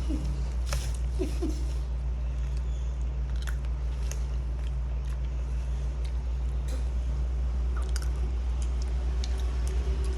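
Someone chewing and biting into food close to the microphone, heard as scattered soft clicks and crunches over a steady low hum.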